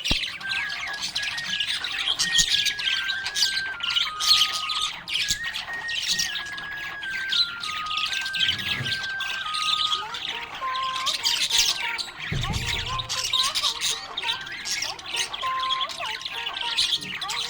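Budgerigar chirping and chattering in quick, continuous bursts, over a steady background melody. A short low thump comes about twelve seconds in.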